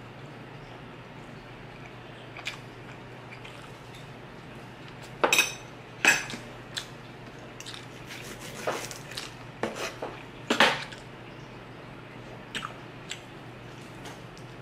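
Steak knife and fork clinking and scraping against a wooden board and a metal spoon as a steak is cut, with a few sharp clicks standing out about five, six and ten seconds in and quieter clicks and chewing between, over a steady low hum.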